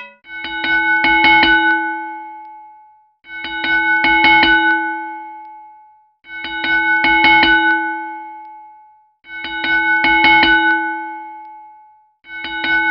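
Looping chime sound effect: a ringing chord of several steady pitches with a quick run of clicks, fading out over about two seconds and repeating every three seconds, five times.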